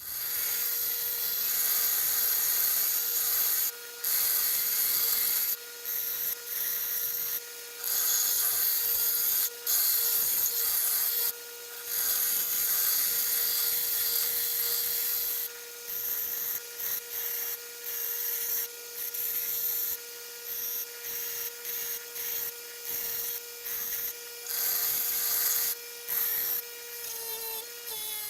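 Grinding wheel running with a steady whine while a steel knife blank is pressed against it in repeated passes, the gritty grinding cutting in and out every second or two.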